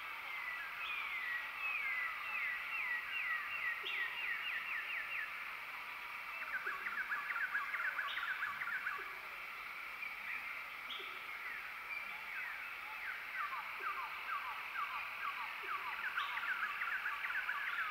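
Chorus of frogs calling: overlapping runs of quick, falling chirps, each run lasting a few seconds, from several callers in turn.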